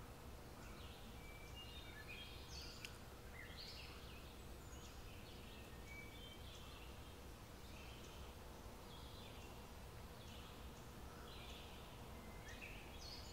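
Near silence: quiet room tone with a low hum, and faint high animal chirps recurring every second or so throughout.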